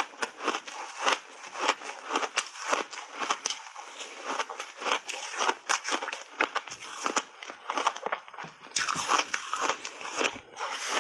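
Refrozen block ice being bitten and chewed in the mouth: a rapid, irregular run of crisp crunches, several a second, with a louder flurry of crunching about nine seconds in.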